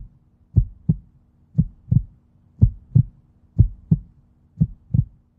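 Heartbeat sound: paired lub-dub thumps, about one pair a second, over a faint steady hum.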